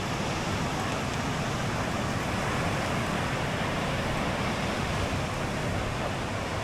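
Ocean surf washing onto a beach, a steady, even rush with no separate sounds standing out.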